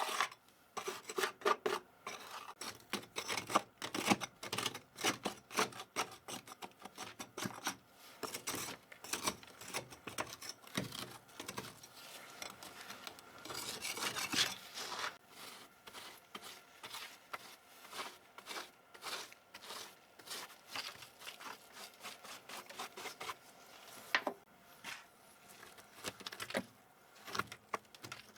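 Hard plastic keyboard parts being worked by hand during cleaning: many short irregular clicks mixed with scraping and rubbing, and a longer stretch of rubbing about halfway through.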